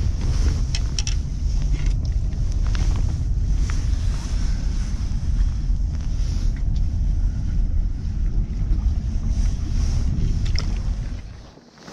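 Wind buffeting a chest-mounted action camera's microphone: a steady low rumble, with a few light clicks scattered through it. The rumble drops away suddenly near the end.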